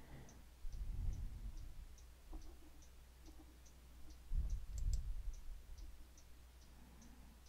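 Faint, evenly spaced ticking, about three ticks a second, with a computer mouse click just before five seconds in, as the Insert button is pressed. Two soft low rumbles sit under it, about a second in and about four and a half seconds in.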